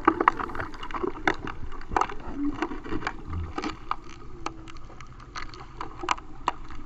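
Underwater sound picked up by a submerged camera: irregular sharp clicks and crackles over a low rumble of moving water.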